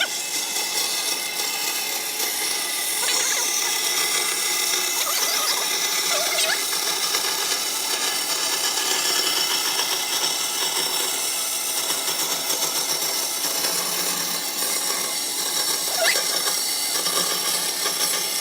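A power tool running steadily in woodworking, with a few brief high squeaks.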